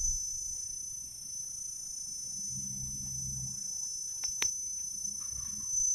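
Steady high-pitched chorus of insects running without a break. A faint low hum comes in briefly near the middle, and a couple of sharp clicks sound about four and a half seconds in.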